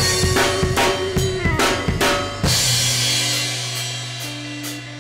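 Rock drum kit played over the recorded song: a steady beat of bass drum and snare for about two and a half seconds, ending on a cymbal crash that rings out and fades under a held bass and guitar note.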